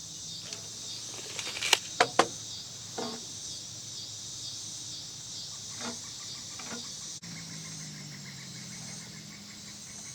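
Crickets chirping in a steady pulsing trill, with a few sharp clicks and knocks, the loudest three coming about two seconds in and fainter ones later. A low hum comes in after about seven seconds.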